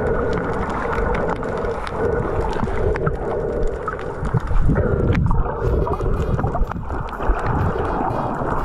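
Muffled underwater sound picked up by a GoPro in its housing: a steady dull rushing and surging of seawater, with scattered small clicks and knocks.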